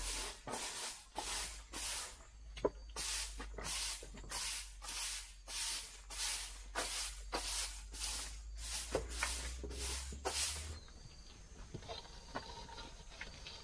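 A stiff stick broom swept over bare dirt ground in quick rhythmic swishes, about two strokes a second, stopping about eleven seconds in.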